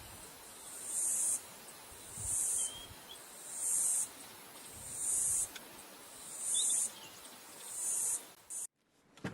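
Insects calling in the bush: a high, hissing buzz that swells and cuts off about once a second, over and over, stopping abruptly near the end.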